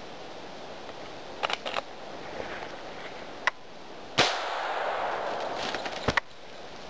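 A sharp shot from a .22 Magnum lever-action Winchester rifle just past the middle, followed by about two seconds of flapping and rustling as the hit hazel grouse comes down through the branches.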